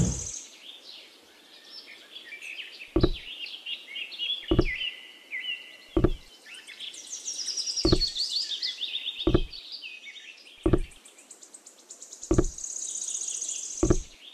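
Small miniature clay-brick model pieces being set down and tapped into place, a dull knock about every one and a half seconds, eight in all, over birds chirping and trilling.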